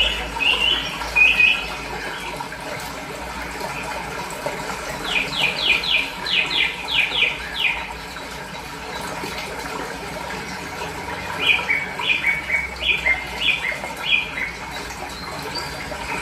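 Small songbirds chirping in runs of short, quick, falling notes, about four a second, over the steady rush of running water.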